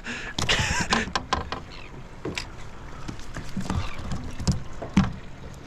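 Australian salmon flapping on the boat's deck: a run of irregular slaps and knocks.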